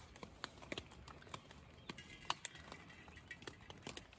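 Faint, irregular clicks and taps of a metal spoon on an aluminium cooking pot, with a short metallic ring about halfway through.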